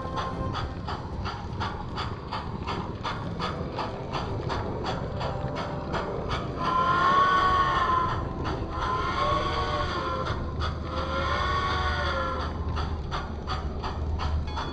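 Model steam locomotive running with steady clicking, about three to four clicks a second. About halfway in, its whistle sounds three blasts, each rising and then falling in pitch.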